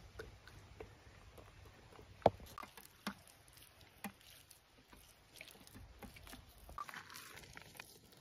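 Faint, scattered wet pats and small clicks of hands rubbing spice paste into a whole raw chicken. The sharpest click comes about two seconds in.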